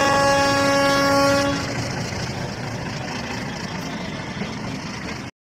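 Train horn sounding one steady note for about a second and a half, then the steady noise of the train moving until it cuts off suddenly near the end.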